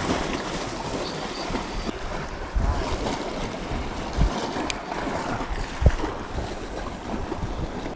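Sea waves washing against shoreline rocks, a steady rushing noise, with wind on the microphone and a few short low thumps.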